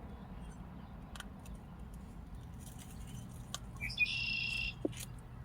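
Quiet chewing of crunchy peanut-butter toast, with a few faint crunchy clicks. About four seconds in comes a short, high chirp that starts with a quick upward slide.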